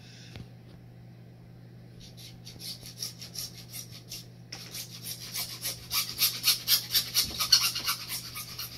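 Hacksaw cutting through PVC pipe. After about two seconds of quiet, back-and-forth sawing strokes start. They pause briefly about four seconds in, then come quicker and louder.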